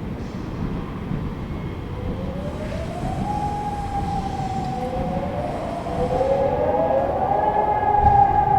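Civil defence sirens starting up: one siren rises in pitch and settles on a steady tone, and a few seconds later a second siren winds up the same way and joins it, over a steady low rumble.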